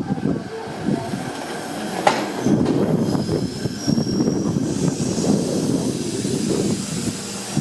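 Meitetsu Seto Line electric train running past over the rails, with a dense steady rumble of wheels and car body. A single sharp click comes about two seconds in, and a faint high wheel squeal follows a few seconds in.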